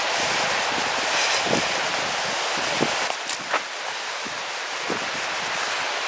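A fast river rushing steadily over rocks, with a few scattered footsteps crunching on a gravel path.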